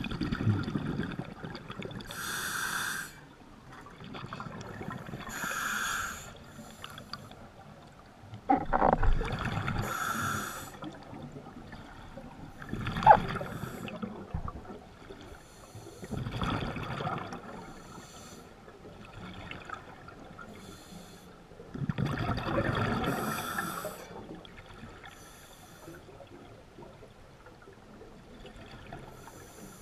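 Scuba diver breathing underwater through a regulator: a hissing inhale, then a rumble of exhaled bubbles, repeating every few seconds.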